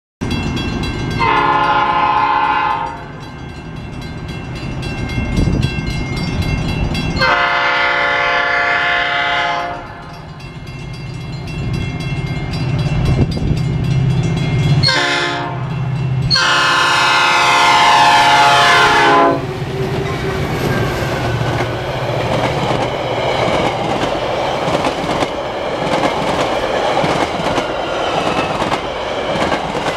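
Metra commuter train horn sounding the grade-crossing signal: long, long, short, long, the last blast dropping in pitch as the train passes. Then the train rolls by with wheels clattering over the rail joints.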